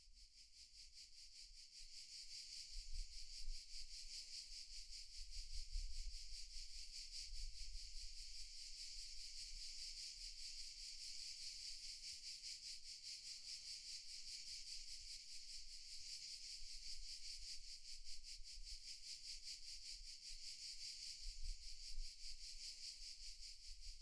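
Cicada chorus: a steady, rapidly pulsing high buzz that builds up over the first few seconds. A few faint low rumbles sit underneath.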